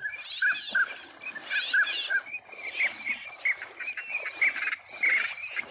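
Duck calls: a rapid, steady run of short repeated quacking notes, several a second.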